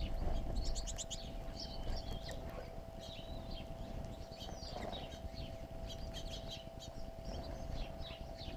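Small songbirds chirping and twittering at a seed feeder, short quick calls scattered throughout, over a faint steady hum and a low rumble.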